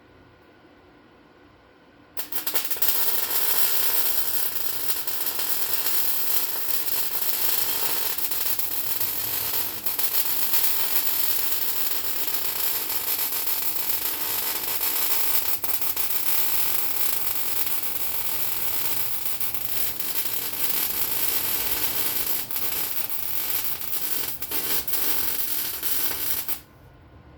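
MIG welding arc crackling steadily through one long continuous bead of roughly 24 seconds. It starts abruptly about two seconds in and cuts off abruptly near the end.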